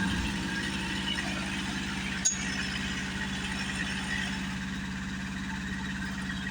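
A large engine idling steadily, with one sharp clink a little over two seconds in.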